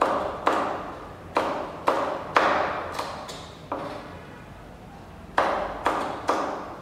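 A kitchen knife chopping on a plastic cutting board in slow, uneven strokes. Each chop rings out briefly. There are about six chops, a pause of a second or so, then three more.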